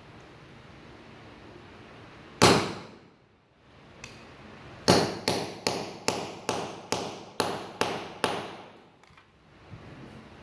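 Hammer blows on metal, driving a bearing into a brush cutter's gear head housing: one blow, then after a pause a quick run of about ten ringing blows, about three a second.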